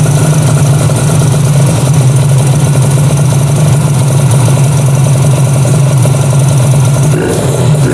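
Kawasaki Ninja RR 150 running a custom two-cylinder two-stroke engine, idling loudly and steadily; near the end the throttle opens and the revs begin to rise.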